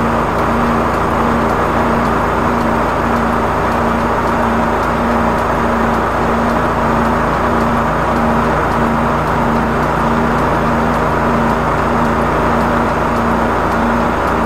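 High-pressure sewer jetter running steadily while storm-drain pipe is cleared of tree roots, its engine and pump giving a loud drone with an evenly pulsing hum.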